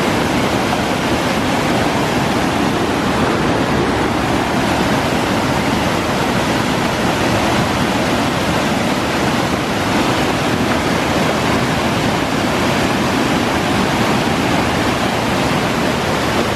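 Steady, loud rush of whitewater spilling over a low fall into a churning pool.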